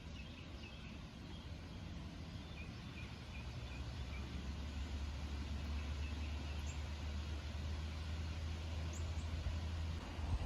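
Outdoor ambience: a steady low rumble that grows slightly louder, with faint short bird calls in the first few seconds and a couple of brief high chirps later.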